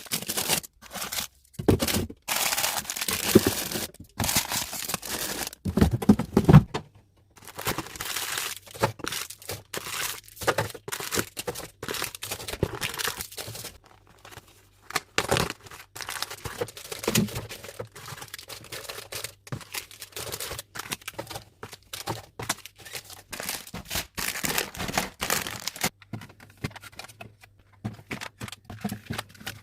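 Plastic snack packaging crinkling and rustling as packets are handled and unpacked, in dense irregular bursts with small knocks.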